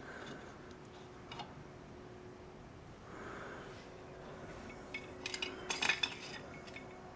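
Small steel drum-brake parts clinking and rattling as they are handled and set down: a single click about a second in, then a quick cluster of metallic clinks around five to six seconds in.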